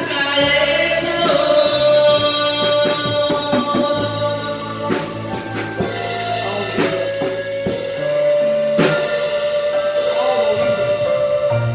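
Live band music with keyboard and drum kit playing the closing passage of a song: sustained chords and a long held note, with a run of cymbal crashes in the second half.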